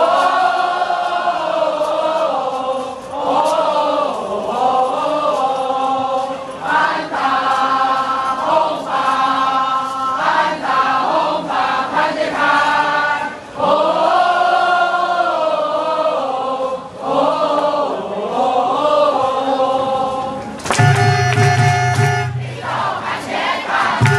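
Baseball stadium crowd chanting and singing a cheer song in unison. Near the end, fans' air horns cut in with steady, blaring tones, pausing once and starting again.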